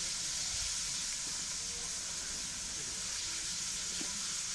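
Bulleid Merchant Navy class steam locomotive No. 35018 British India Line standing at a water stop, escaping steam giving a steady hiss.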